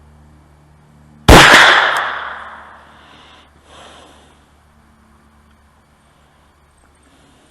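A single shot from a Ruger PC Carbine Takedown 9mm rifle: one sharp crack that trails off over about a second and a half, followed about two seconds later by a much fainter short sound.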